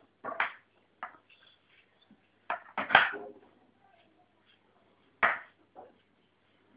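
A stick scratching the dog's coat near its tail in short rasping strokes, about six of them, loudest about three seconds in.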